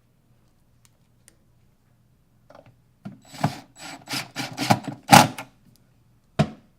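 Wooden kitchen wall cabinet being handled: after a quiet start, a run of sharp wooden knocks and clatters of its doors and panels, then one more knock near the end.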